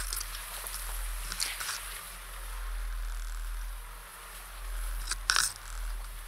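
Tall grass brushing and scraping along the side of a slowly driving SUV and its side-mounted action camera, over a steady low rumble. There are short crunchy scrapes about a second and a half in, and the loudest just after five seconds.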